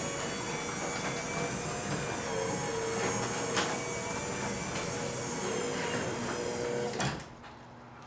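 Craftsman 3/4 HP belt-drive garage door opener running as it opens the door: a loud, steady motor hum with a few clicks and rattles from the door. It cuts off suddenly about seven seconds in.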